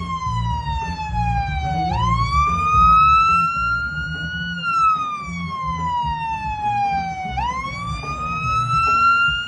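A wailing siren: its pitch shoots up about two seconds in and again near the end, keeps climbing a little, then slides slowly down over about three seconds. A low, steady rumble runs underneath.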